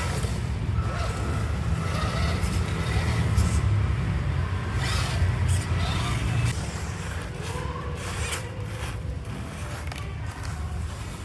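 Micro RC crawler driving through loose sand: a small electric motor and gearbox running, with tyres scraping in the sand. It is louder for the first six seconds or so, then drops.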